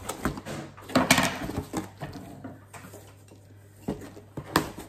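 Large cardboard shipping box being opened and handled: scattered knocks and scrapes of cardboard, the loudest about a second in and two more near the end.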